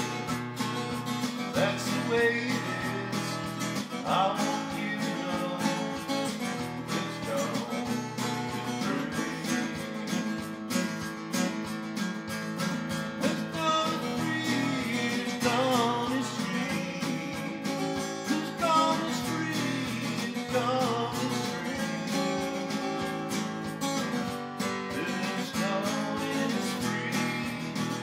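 A man singing to his own strummed guitar, a steady strumming rhythm under a wavering sung melody.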